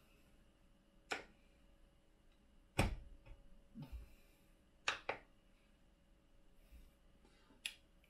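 Several sharp plastic clicks and knocks as a 1/4-inch hex-shank bit is fitted into a 3D-printed plastic nozzle torque wrench body. The loudest, about three seconds in, comes with a dull thump.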